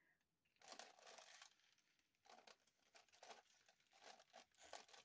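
Faint crinkling of small clear plastic zip bags of diamond-painting drills being handled and shuffled, in irregular bursts starting about half a second in.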